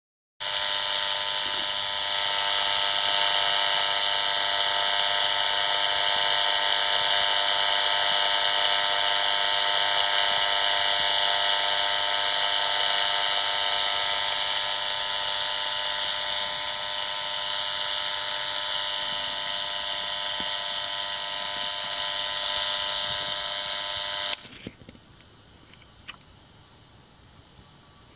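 Dirty electricity meter's speaker giving a loud, steady, buzzing hiss that renders high-frequency noise on the mains, while the meter reads about 190 mV. About 24 s in the sound drops abruptly to a faint hiss with a few clicks, as the reading falls by over 90% once the plug-in mains filter is working.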